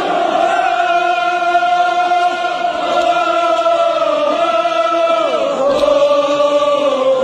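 A crowd of men chanting together in unison in long held notes, the pitch sliding down about halfway through.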